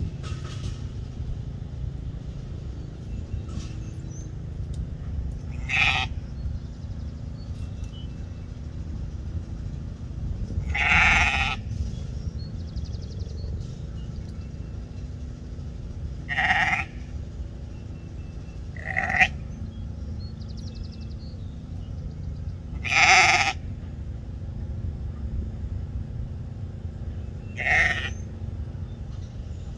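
Ewe bleating about six times, a few seconds apart, each call lasting under a second. A steady low rumble runs underneath.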